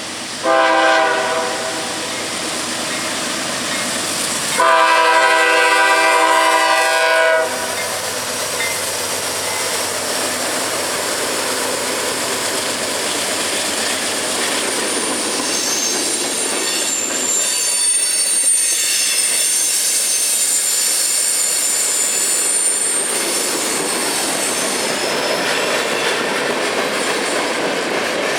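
Norfolk Southern freight locomotive's air horn sounding a chord of several notes: a short blast about half a second in, then a long blast of nearly three seconds. After that comes the steady rumble and clickety-clack of the manifest freight's cars rolling past, with a high wheel squeal through the middle stretch.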